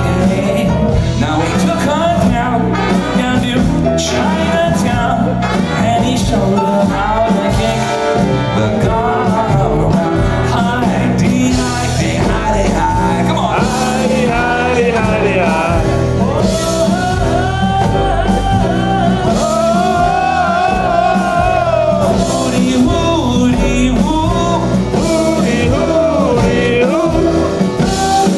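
Live swing band with horns, piano and drums playing, with a male lead singer over it.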